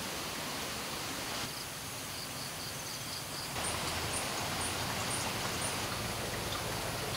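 Outdoor natural ambience: a steady hiss with runs of short, high chirps repeating about two to three times a second.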